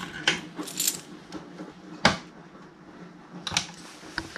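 A handful of short clicks and knocks, the loudest a sharp knock about two seconds in, over a faint steady low hum.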